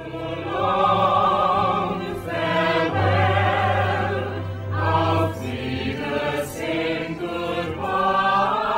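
Choral music: a choir singing held chords that change every second or so, over a low bass.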